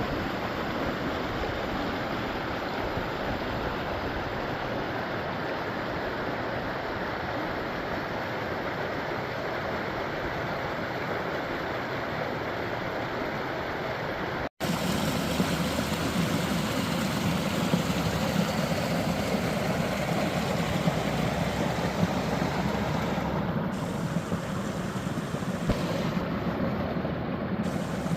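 Steady rushing and babbling of a woodland stream. Halfway through there is a momentary break, and after it the water is a little louder and fuller.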